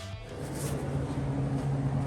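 Rock background music fades out, and a steady low hum takes over from about a third of a second in.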